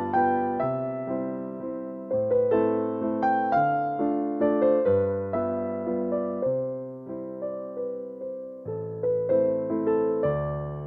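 Background music: a gentle electric piano melody of struck, decaying notes over slow low bass notes.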